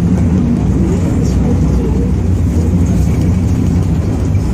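Paris Métro MF01 train running, heard from inside the passenger car: a loud, steady low rumble of wheels and running gear.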